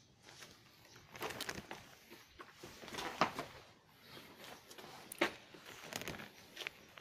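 Rustling and scuffing close to the microphone, with a few sharp clicks, the loudest about three and five seconds in.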